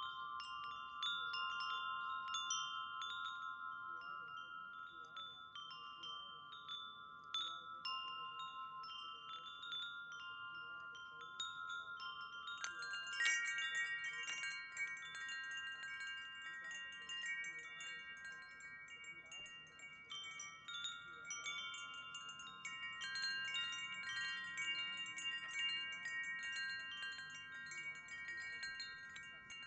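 Wind chimes ringing, with irregular strikes over overlapping lingering tones. About 13 seconds in, a second, higher-pitched set of chimes joins in, and the ringing grows denser.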